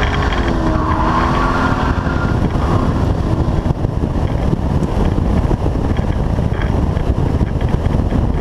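Holden VY one-tonner ute engine running, its note dropping over the first couple of seconds and fading out, then heavy wind buffeting on the exterior camera's microphone covering the car.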